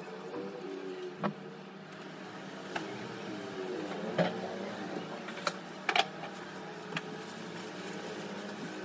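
Hair straightener (flat iron) being handled: a few sharp clicks and taps at irregular moments as the plates clamp on a strand of hair and the iron is turned, the loudest a quick double click about six seconds in, over a steady low hum.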